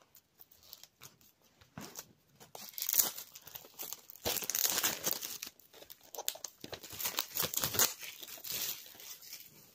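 Plastic shrink-wrap being torn and crumpled off a DVD case: irregular crackling and tearing, starting a couple of seconds in and loudest around the middle.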